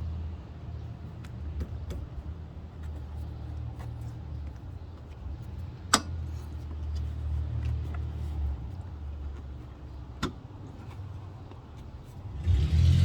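Hand work fitting a new engine thrust mount into a car's engine bay: two sharp metallic clinks, about six and ten seconds in, and lighter taps and ticks between them, over a steady low hum. A louder rushing noise comes up just before the end.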